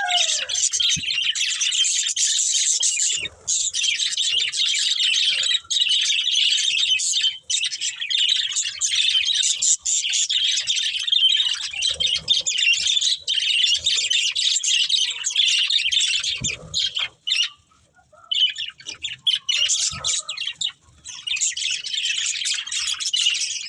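Budgerigars chattering and chirping continuously in a dense, high-pitched stream of overlapping calls, with a brief lull about three-quarters of the way through.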